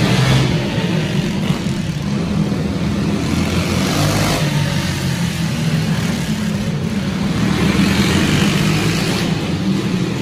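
Racing go-kart engines running as karts lap a dirt oval inside a large arena: a steady engine drone that swells and fades as karts pass, loudest near the start, about four seconds in and again around eight seconds in.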